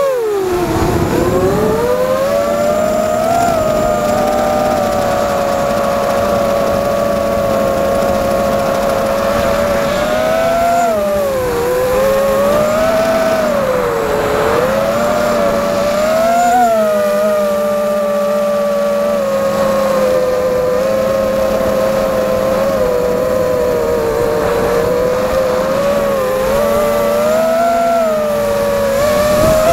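FPV drone's electric motors and propellers whining in flight. The pitch glides up and down with the throttle, dipping and rising several times about a third of the way in and again near the middle, over a steady low hum.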